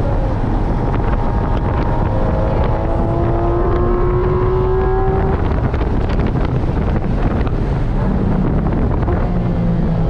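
Porsche 718 Cayman GT4 RS's 4.0-litre flat-six heard from inside the cabin under power, its pitch rising steadily through a gear, then the tone breaks off about five seconds in. Wind noise runs underneath throughout.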